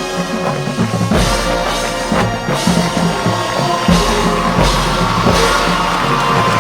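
Marching band playing: brass over a drum line with bass drum hits, the brass holding sustained notes in the second half.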